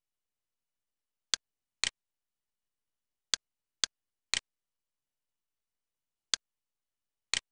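Computer mouse clicks from a screen recording: seven sharp clicks, three of them quick doubles like double-clicks, with dead silence between them. The clicks are the click sound effect that the Camtasia Studio screen recorder adds.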